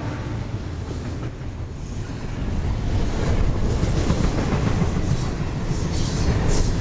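Double-stack container train's well cars rolling past: a steady rumble of steel wheels on rail, growing louder about three seconds in, with clicks of wheels over rail joints in the last couple of seconds.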